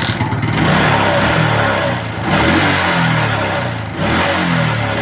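Suzuki Smash 110 single-cylinder four-stroke motorcycle engine running and revved up and down several times. It is running on a replacement spark plug; the hard starting and misfiring had been traced to a cracked plug.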